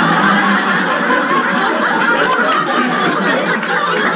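A comedy-club audience laughing together, loud and sustained, in response to a punchline.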